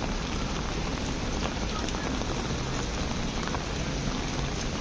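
Steady rain falling and splashing on pavement, with many scattered sharp drop ticks.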